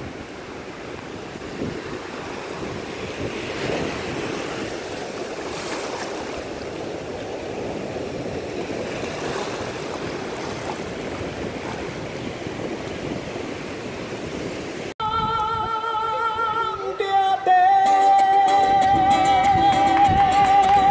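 Small waves washing in over wet sand at the water's edge, an even rushing noise. About fifteen seconds in it cuts to a busker singing and strumming an acoustic guitar, louder, with a wavering held note near the end.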